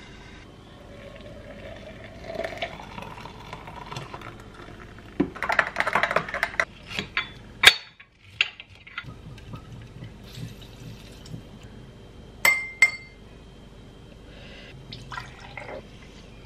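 Liquid poured into a vessel, its pitch rising as it fills, followed by a louder burst of scraping and rustling, a few sharp knocks, and a single ringing glass clink. Near the end comes water poured into a glass.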